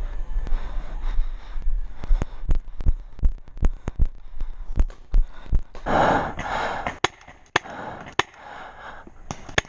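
Paintball markers firing a quick, uneven string of about a dozen shots, then three single shots spaced apart near the end.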